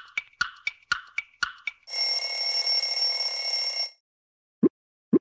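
Countdown-timer sound effect: a clock ticking about four times a second, then a bell ringing for about two seconds as the answer time runs out, followed by two short pops.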